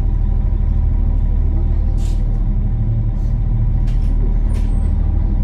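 Engines of a high-speed passenger ferry running under way, a loud, steady low drone with a constant hum, heard from inside the passenger cabin. A couple of brief hisses cut through, about two and four seconds in.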